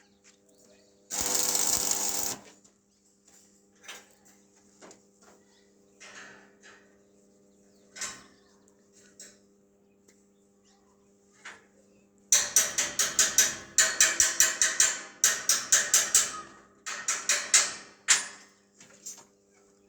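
Metal workshop clicks and knocks: a short loud burst about a second in, scattered clicks, then a fast run of sharp repeated strikes about three a second in the second half, over a faint steady hum.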